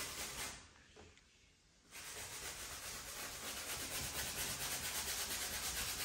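Stiff bristle brush scrubbing fairly dry oil paint into a stretched canvas: a scratchy rubbing in short, quick strokes. It breaks off briefly about a second in, then carries on steadily.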